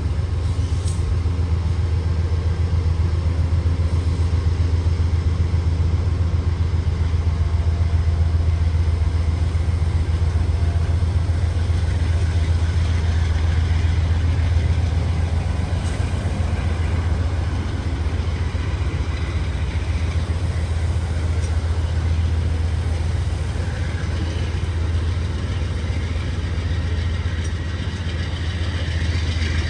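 An engine running steadily with a deep, even low rumble and no change in speed.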